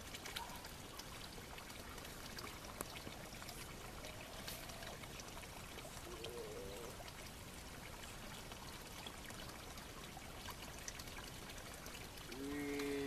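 Faint, steady rush of flowing water, with a few small ticks. Near the end, a held pitched sound comes in over it.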